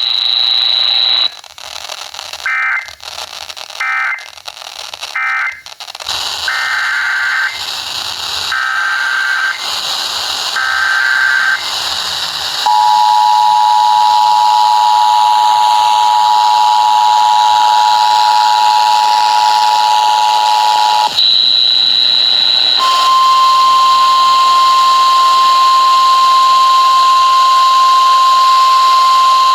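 Emergency Alert System signalling. A high beep, then two sets of three short, raspy digital data bursts (SAME header codes). Then the two-tone attention signal holds steady for about eight seconds. Near the end a brief high beep leads into the single steady 1050 Hz weather-radio warning tone.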